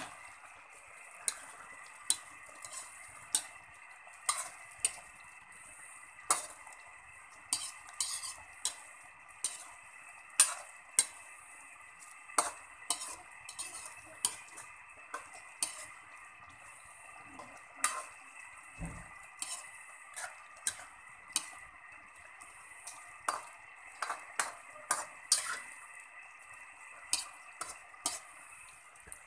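A metal spoon stirring a tuna-and-coconut-milk stew in a metal pan, clinking and scraping against the pan in sharp, irregular knocks about once or twice a second, over a steady hiss from the cooking pan.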